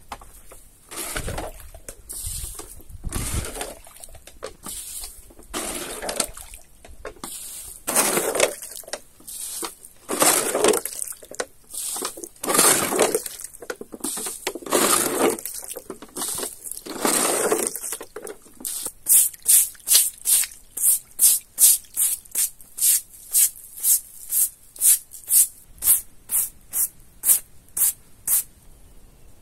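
Water being scooped and flung out of a small cement-lined basin, a splashing swish every two seconds or so. About two-thirds of the way in, this changes to a stiff brush scrubbing the drained cement floor with quick, even strokes, about two a second.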